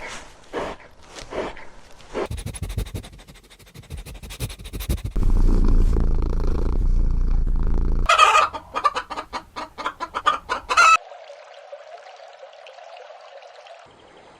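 Chickens clucking, with a fast run of loud, rapidly repeated calls a little past the middle. A stretch of low rumbling noise comes just before that run, and a steady hum follows it.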